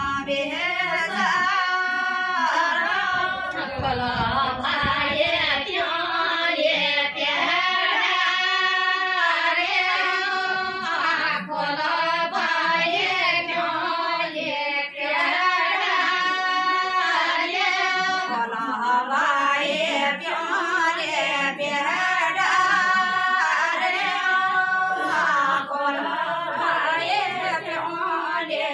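Group of women singing a Garhwali mangal geet together without accompaniment, a ritual song sung at the kanyadaan (giving away of the bride) in a wedding.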